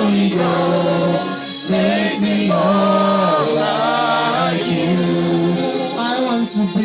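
A choir singing long, held notes in harmony, a slow gospel worship song with little or no instrumental backing.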